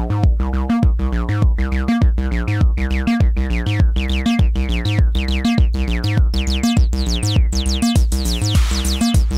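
Eurorack acid bass line, a VCO-3340 oscillator through a 303-style resonant filter (Din Sync VCF303), with each note's resonant sweep falling in pitch, over a steady 909-style drum-machine beat. The mix pumps in time with the kick: side-chain ducking from the Takaab 2VCA VCA.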